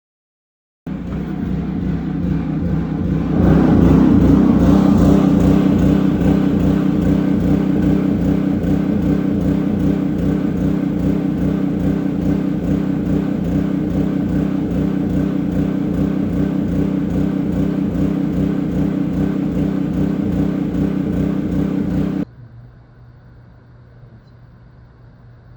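Hart 3600-watt portable generator's gasoline engine running steadily, growing louder about three seconds in. The sound cuts off suddenly near the end, leaving a faint low hum.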